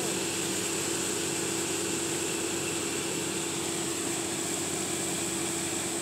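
Concrete mixer truck's engine running steadily as it discharges concrete down its chute, a constant drone with a steady high whine over it.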